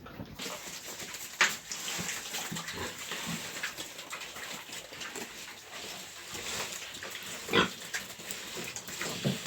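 Pigs calling, with two short, loud, sharp sounds, one about a second and a half in and one near the end.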